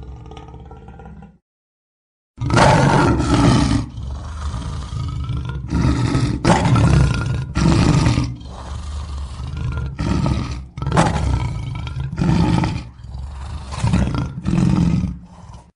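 Lion roaring: after a short gap, one long full roar, then a run of shorter grunting roars about one a second. A low rumble cuts off about a second in, before the roar begins.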